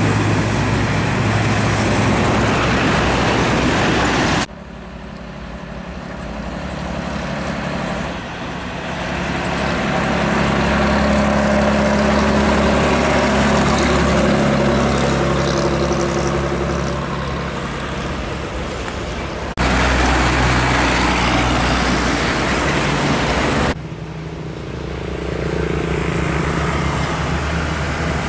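Old heavy diesel cargo trucks driving past close by: a steady low engine drone over tyre and road noise. The sound switches abruptly several times from one passing truck to another.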